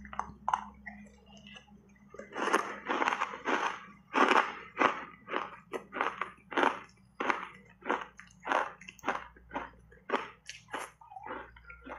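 Close-miked crunching of a mouthful of shaved ice being chewed: faint at first, then a steady run of sharp crunches about two a second.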